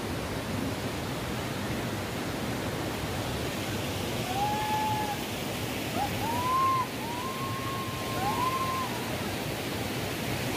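Steady rush of water from a stream and small waterfall, with a few short whistle-like notes rising and falling about halfway through.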